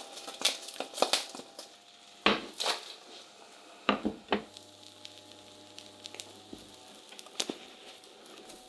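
Non-stick frying pan knocking and scraping on a glass hob as an omelette is shaken and flipped, a series of sharp clatters, with the eggs sizzling faintly underneath.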